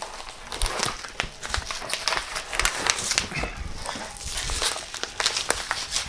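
Bubble wrap and a cardboard box being handled as filament refill spools are unpacked: irregular crinkling, crackling and rustling, with a few low thumps.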